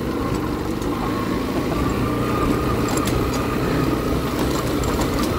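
Motorcycle engine running steadily as it is ridden over a rough, potholed dirt track, with a few sharp knocks and rattles from the bumps.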